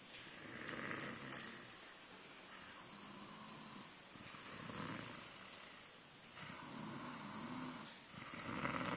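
Snoring: slow, drawn-out breaths, about three across the stretch. A brief sharp sound about a second in stands out as the loudest moment.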